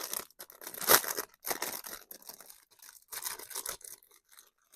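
Plastic packaging being torn open and crinkled by hand: irregular rustling and crackling, sharpest at the start and about a second in.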